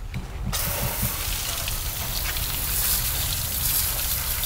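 Garden hose spray nozzle turned on about half a second in, a steady spray of water hitting the boat's riveted aluminum transom and splashing down onto the ground. It is rinsing the hull cleaner off.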